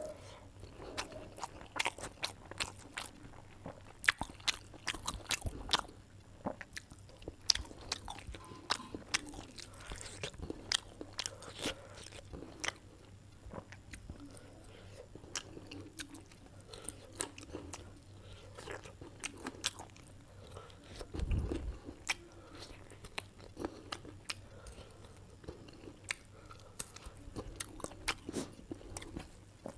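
Close-up chewing of a mouthful of curry, rice and salad, with many irregular sharp mouth clicks and bites. A single low thump comes about two-thirds of the way through.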